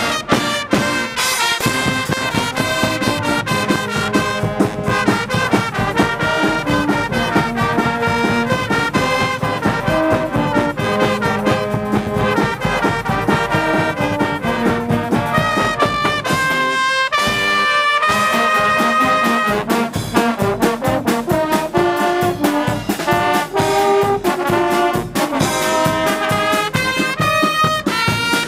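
Guggenmusik brass band playing loudly: trumpets, trombones and sousaphones over a drum kit and bass drum. About two-thirds of the way through, the drums and low brass drop out briefly while the high brass holds a note, then the full band comes back in.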